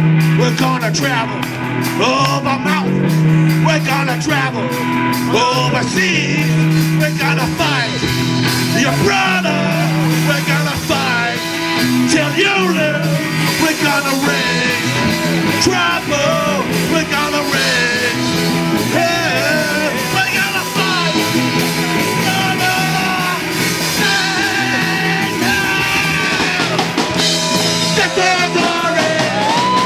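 Punk rock song: a lead vocal sings over a full rock band.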